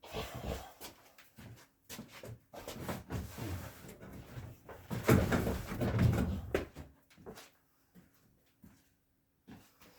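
Irregular rubbing and scattered knocks of a wooden chest of drawers being handled during sanding work, loudest about five to six and a half seconds in, then a few light knocks.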